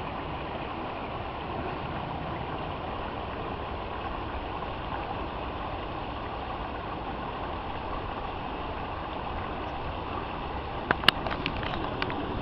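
Steady rush of discharge water from a landfill sediment basin running over rocks into a creek. A few sharp clicks about eleven seconds in.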